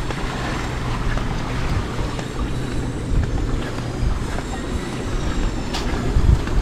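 Wind buffeting the microphone with a steady low drone underneath, heard while walking along a seaside beach.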